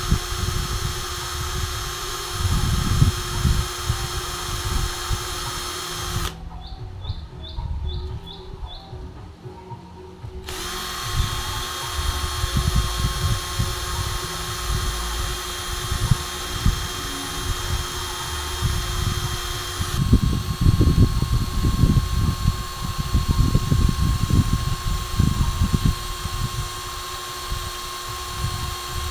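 Cordless drill whining steadily as it spins the carburetor jet needle to grind it to a sharper point, with rubbing and handling noise underneath. The drill stops for about four seconds around six seconds in, then runs again.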